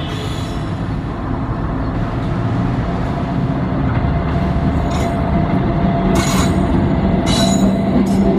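Express passenger train hauled by a WAG9 electric locomotive running through a station at speed: a steady rumble of wheels on rails that grows louder, with several short high-pitched wheel squeals from about five seconds in.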